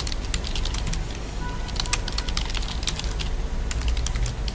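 Computer keyboard typing: a quick, irregular run of keystroke clicks over a steady low hum.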